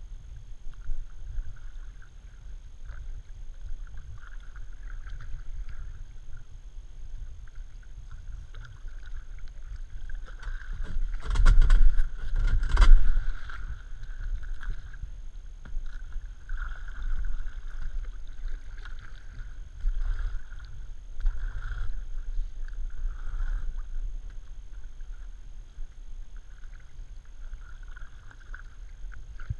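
Kayak being paddled, with repeated paddle strokes and water washing along the hull. About eleven seconds in, a louder two-second run of crackling and scraping as the bow pushes through thin ice on the water.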